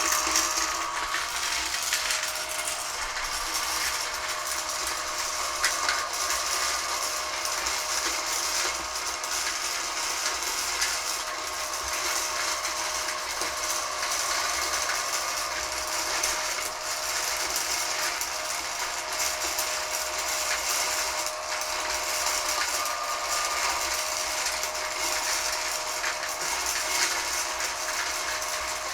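Hornady Lock-N-Load case feeder and rifle bullet feeder running together: a steady motor hum under a constant clicking rattle of .223 brass cases and bullets being tumbled and sorted by the rotating feed plates into the drop tubes.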